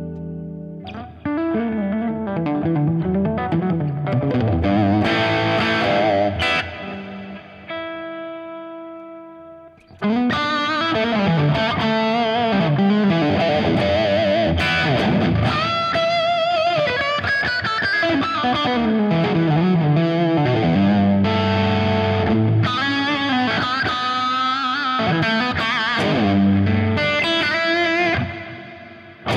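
Les Paul-style electric guitar played through a crunchy overdrive preset on a Fractal amp modeller. Bent, vibrato-laden lead lines give way to a chord left ringing out, then a longer lead passage and lower chords that fade out near the end.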